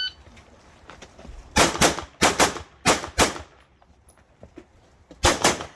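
Pistol fired in quick double-taps: three pairs of shots in rapid succession, a pause of about two seconds, then another pair near the end.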